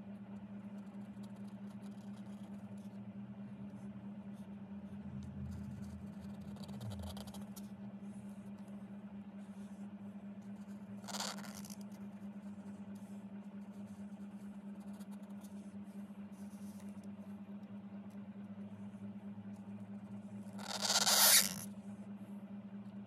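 Bamboo calligraphy brush scraping across card: a short scrape about halfway through and a longer, louder dry-brush drag near the end as the long tail stroke is pulled. A steady low hum lies underneath.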